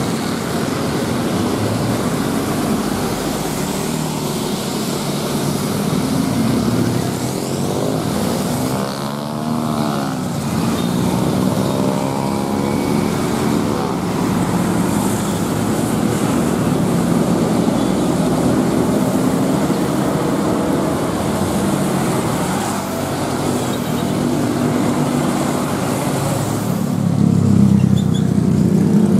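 Busy road traffic on a wet road: motorcycles and large intercity buses passing, with tyre hiss on the wet asphalt. A bus passes close about midway through, and engine rumble grows louder near the end as a pack of motorcycles moves off close by.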